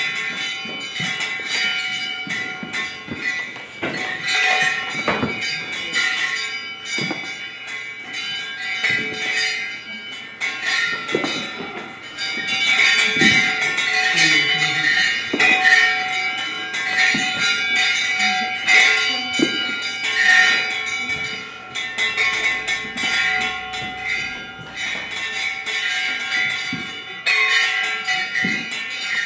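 Many bells struck irregularly and ringing together, their overlapping tones sustained between strikes, growing a little louder about twelve seconds in.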